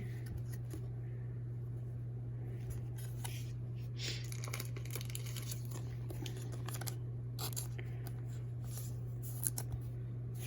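Faint crinkling and tearing of a trading-card pack's foil wrapper as cards are handled, in scattered short rustles over a steady low hum, with a few small sharp clicks near the end.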